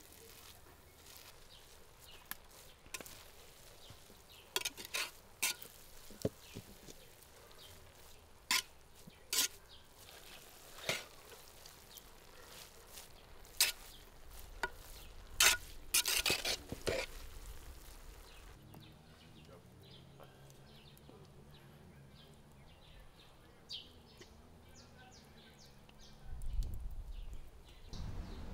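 Scattered sharp clicks and crackles at irregular intervals, then a low steady hum for the last third, with a louder low rumble near the end.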